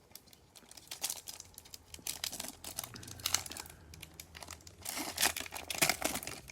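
Foil wrapper of a Bowman baseball card pack being torn open and crinkled by hand, an irregular run of crackles that is loudest near the end.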